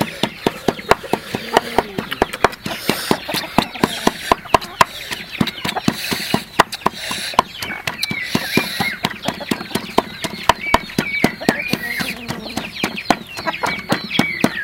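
Domestic fowl clucking and calling in wavering phrases, over a dense, irregular run of sharp knocks and a few brief flurries of noise.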